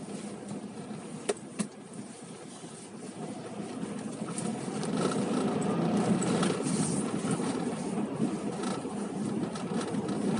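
Car on the move, a steady road rumble that grows louder a few seconds in, with two sharp clicks near the start.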